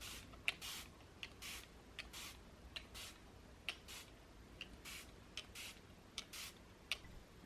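A regular series of short scratchy swishes, each paired with a sharp click, repeating about once every three-quarters of a second: small hand-handling sounds.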